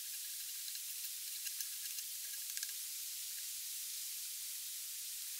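Steady hiss of a fast-flowing river, with a few faint light ticks.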